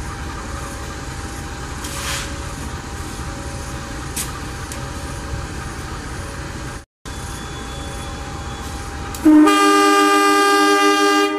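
Diesel-electric locomotives idling with a steady hum, cut off briefly about seven seconds in. About nine seconds in a locomotive's air horn sounds one long, loud blast, the departure signal before the train pulls out.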